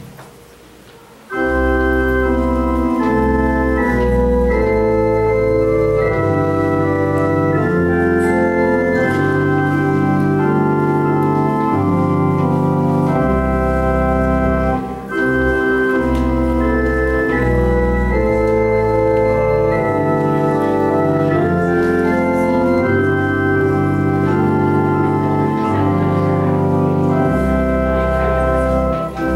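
Organ playing slow, sustained chords over a deep bass line. It begins about a second and a half in and pauses briefly near the middle.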